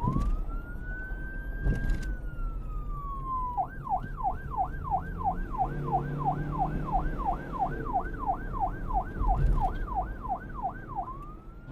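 Emergency vehicle siren: a slow rising and falling wail that switches to a fast yelp, about two and a half sweeps a second, then back to the slow wail near the end, over a low traffic rumble.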